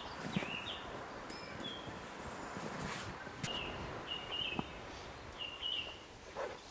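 Small birds chirping, short zigzag calls repeated every second or so, over soft rustling and patting of hands mixing flour and water into dough.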